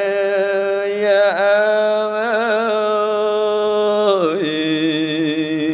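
A male Buddhist monk chanting Khmer smot, the sung Buddhist recitation used at funerals, into a microphone. He sings one long melodic line of held notes with wavering ornaments, and the line dips and settles onto a lower note about four seconds in.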